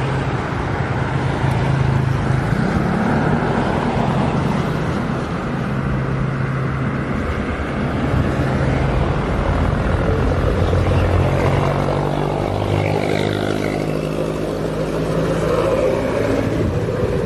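Motor vehicle engines running steadily, a low hum that shifts up and down in pitch, over road traffic noise.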